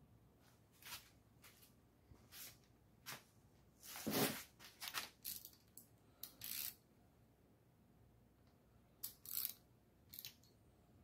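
Faint, short metallic clicks and rattles in scattered bursts, the loudest about four seconds in: the stamped-steel rocker arms and pushrods of a V8 with hydraulic lifters being wiggled by hand to feel for valve lash before adjustment.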